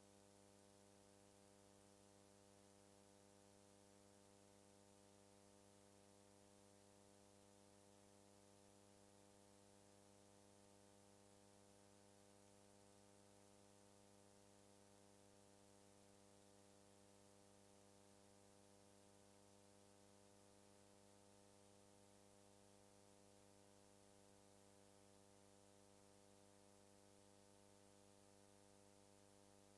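Near silence: a faint, steady electrical hum with a light hiss, unchanging throughout.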